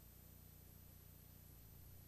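Near silence: a steady low hum with faint hiss, the background noise of an old soundtrack.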